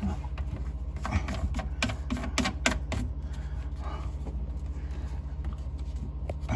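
Irregular clicks and light knocks of sink drain pipe fittings being handled and tightened, bunched in the first few seconds with a few more later, over a steady low hum.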